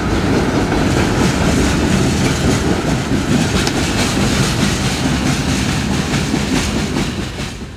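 Freight train boxcars rolling past close by: a steady rumble of steel wheels on rail with clickety-clack over the rail joints. The sound fades out quickly near the end.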